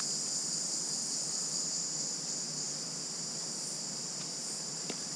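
Cicadas droning: a steady, high-pitched buzz that holds an even level.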